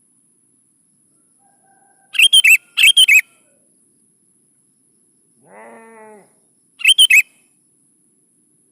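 Sooty-headed bulbul (kutilang) singing: three short, loud, bubbly phrases, two close together about two seconds in and one near the end. Between them comes a quieter, lower, drawn-out call.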